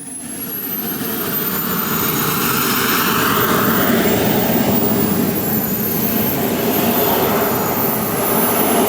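Turbine engine of a radio-controlled model jet (a JetCat 220 in an MB-339 model) running: a loud rush of jet noise that builds over the first couple of seconds and then holds steady, with a thin high-pitched whine that wavers in pitch.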